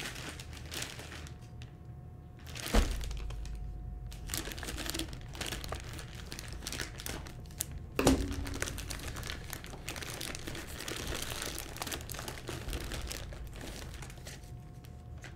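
Plastic packaging crinkling and rustling as a snack bowl is pulled out of a plastic mailer bag and wrapping, with two sharp knocks, about three seconds in and again near eight seconds.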